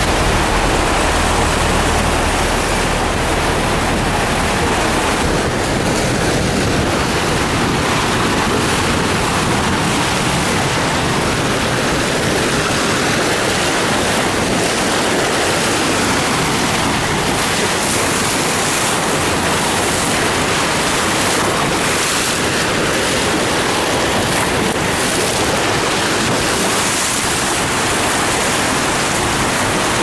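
Floodwater of the Caroní River, swollen after heavy rain, rushing through wide rapids and falls: a loud, steady whitewater rush.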